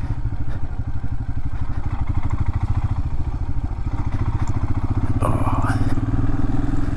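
Royal Enfield Himalayan's single-cylinder engine running steadily under way, with a fast, even pulse. A brief rush of noise comes about five seconds in.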